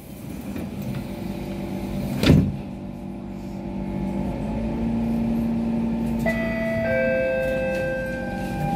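Siemens C651 MRT train closing its doors with a loud thud about two seconds in, then starting to pull away. Its GTO traction inverter and motors give steady electric tones that step from one pitch to another in the last few seconds.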